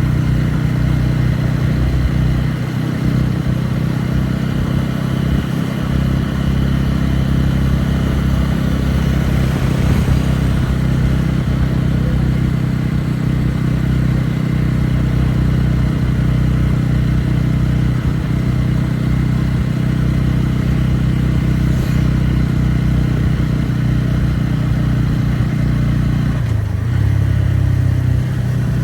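Motorcycle engine running steadily under way, over a wash of wind and road noise; near the end the engine note drops and changes.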